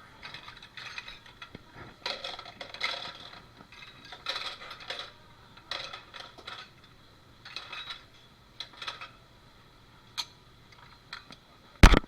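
Dishes and cutlery clattering in repeated short bursts as they are handled at a restaurant dish station, with one loud sharp bang near the end.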